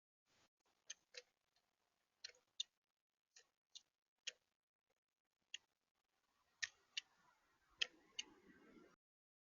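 Birds pecking and hopping on a bird feeder, picked up at close range by the feeder camera's built-in microphone: sharp, irregular clicks and taps, some in quick pairs, with faint rustling in the last couple of seconds.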